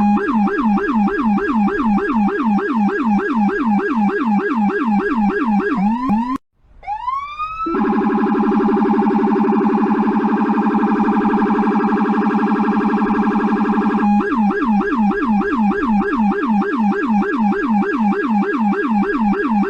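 American police car's electronic siren in fast yelp, its pitch sweeping up and down about four times a second. About six seconds in it cuts out briefly, sweeps up and holds a steady tone for about six seconds, then goes back to the fast yelp.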